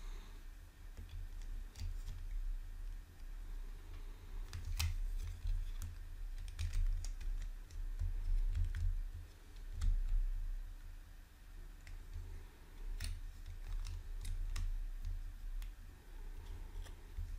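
Plastic Lego bricks clicking as they are handled and pressed together: scattered sharp clicks at uneven intervals, with dull low bumps of handling.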